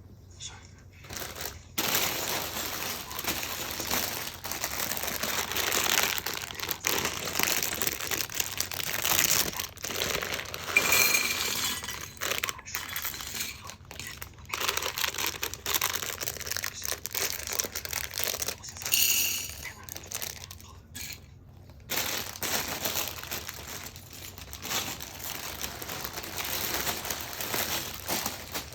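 Plastic crinkling and rustling with small clicks and clatter, as LEGO pieces and their plastic bags are handled and sorted, pausing briefly about twenty seconds in.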